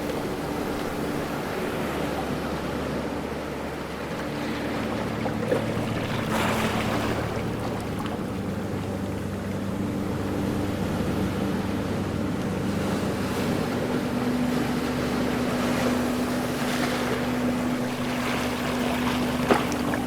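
Ocean waves washing and breaking, with a surge about six seconds in and another near the end, over a steady low hum.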